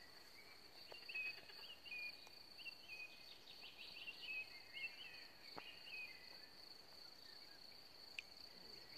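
Faint outdoor ambience: a steady high insect trill, with a bird singing short chirping phrases from about a second in until about six seconds in.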